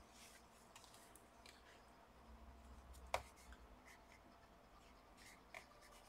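Near silence: faint room tone with a low hum and a few soft clicks, the sharpest about three seconds in.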